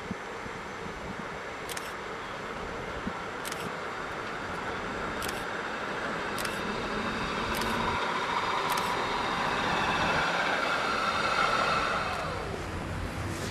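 Yellow museum tram running along the track, growing louder as it comes closer, with a squealing whine near its loudest and a few sharp clicks; the pitch falls away as it passes near the end.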